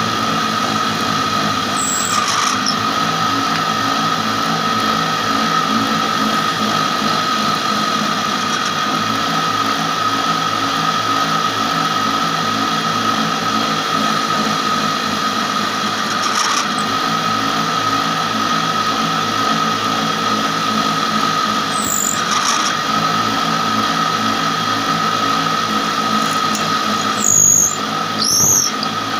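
A small electric wood-shaping machine runs steadily with a constant whine as a wooden strip is pressed against its spinning cutter. Short high squeals come several times as the wood is worked, the loudest twice near the end.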